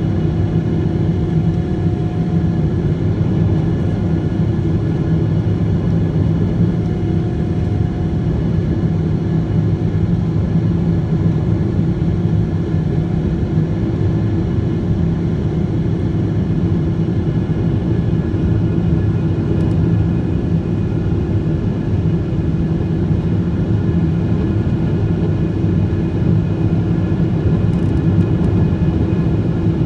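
Boeing 777-200ER cabin noise heard beside the wing, its GE90 turbofan running steadily at climb power: a loud, even rumble with a few constant tones over it.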